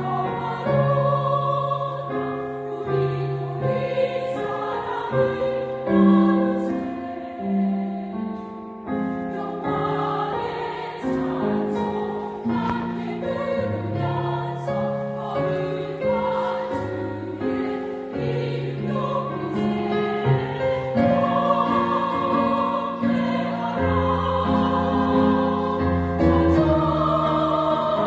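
Small mixed vocal ensemble singing a Christmas hymn in several parts, with long held notes and a low bass line under the harmony.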